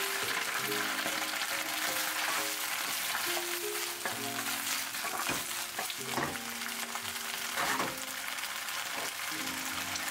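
Bok choy sizzling as it is stir-fried in oil in a nonstick pan, with a wooden spatula scraping and tossing the leaves a few times in the second half. Soft piano music plays underneath.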